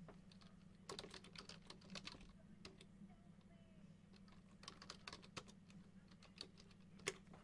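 Faint, quick clicking in two short runs, about a second in and again near five seconds, with a single click near the end, over a low steady hum.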